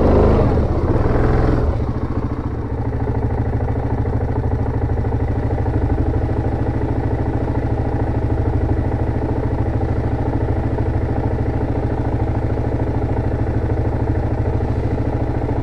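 2017 Yamaha Grizzly 700 ATV's single-cylinder engine dropping in pitch as the quad comes to a stop in the first two seconds, then idling steadily.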